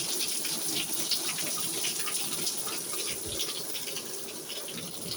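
Heavy rain pouring down: a steady rushing hiss dotted with the patter of many drops.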